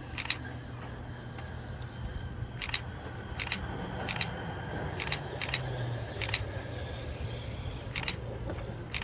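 Ford Super Duty hi-rail pickup truck approaching slowly along the rails: a low steady hum with about eight sharp clicks at uneven intervals.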